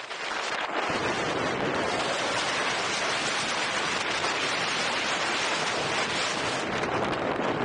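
Loud, steady wind noise buffeting the camera microphone while riding at speed, building up over about the first second.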